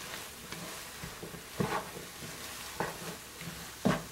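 Egg and meat mixture sizzling in a nonstick frying pan while a spatula stirs it, scraping across the pan about once a second.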